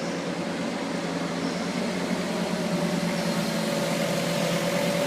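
Car engine and street traffic noise with a steady hum, slowly growing louder as a car approaches.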